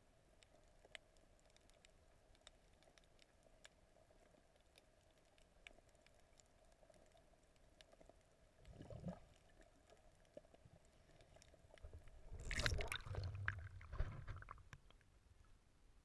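Muffled underwater sound heard through a camera's waterproof housing: a faint steady hum with scattered light clicks, a brief swell of water noise about nine seconds in, then louder sloshing and rushing water from about twelve to fifteen seconds as the camera comes up to the surface.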